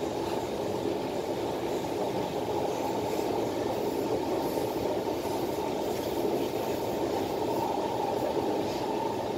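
Interior running noise of a Kawasaki Heavy Industries C151 metro train car in motion: a steady, low rumble of wheels on rail and car body, even in level throughout.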